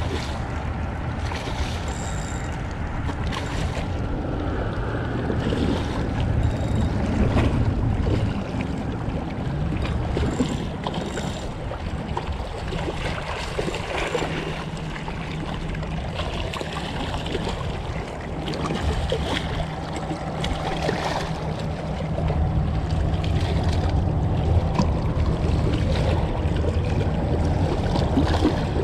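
Wind buffeting the microphone over small waves lapping and splashing against shoreline rocks, rising in level in the last few seconds.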